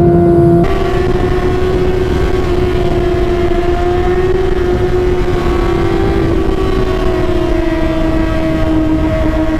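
Kawasaki ZX-6R's inline-four engine running steadily at high revs through an aftermarket exhaust, its pitch drifting slightly up and down; the sound changes abruptly at a cut just under a second in.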